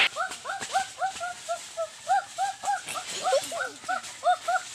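An animal yelping in a fast run of short, rising-and-falling calls, about four a second, without a break.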